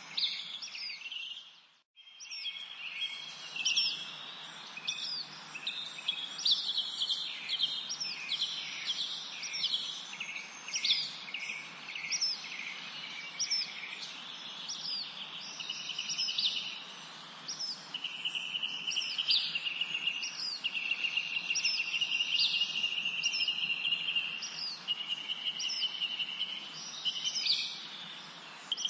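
A chorus of small birds singing: short high chirps repeated over and over, over long, steady high trills. The sound cuts out briefly about two seconds in.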